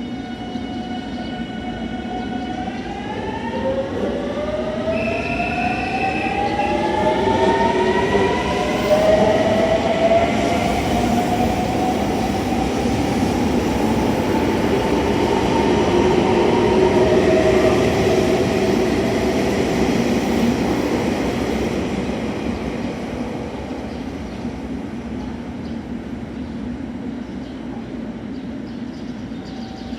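Electric train accelerating past. Its traction motors give a whine of several tones that climb in pitch over the first ten seconds or so. Rail running noise then grows, peaks and fades away.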